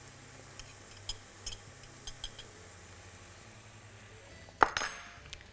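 A few faint, light taps of a thin metal spoon against a small glass spice jar as nutmeg powder is sprinkled into a frying pan, over a low steady hum. Near the end comes one sharp click and a short rattle of ticks as a pepper mill is handled.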